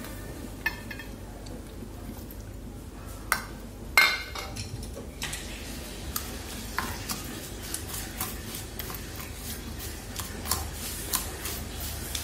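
Stainless steel bowls clinking a few times as pieces of salted fish are tipped from one into the other, the loudest knock about four seconds in. From about five seconds on, wooden chopsticks mix the fish with garlic and chili, clicking and scraping against the steel bowl.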